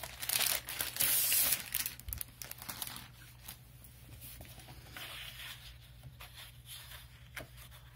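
Clear plastic sleeve crinkling and rustling as a scrapbook paper pad is slid out of it, loudest over the first second and a half, then dying down to softer rustles of plastic and paper.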